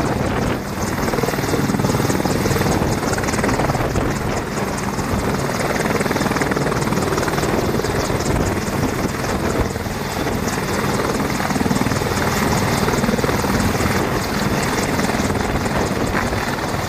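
Boeing AH-64 Apache helicopter running on the ground, its twin turboshaft engines and four-blade main rotor turning steadily.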